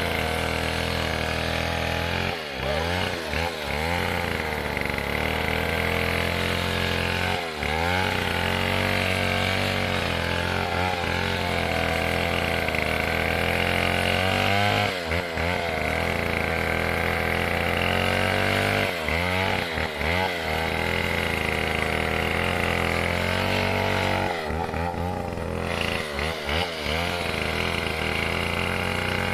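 Stihl 070 two-stroke chainsaw engine running steadily, with brief dips in its pitch and level every few seconds.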